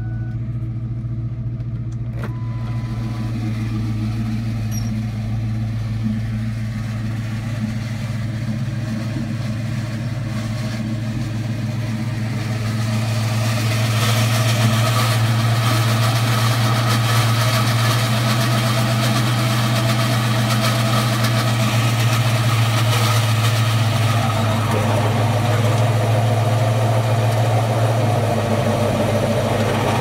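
A 2004 Ford Mustang GT's 4.6-litre V8 idling with the clutch pedal out, carrying a horrendous clutch noise that the owner and his mechanic trace to a failing throwout bearing or pilot bearing. About thirteen seconds in the sound becomes louder and rougher, with the steady engine hum underneath.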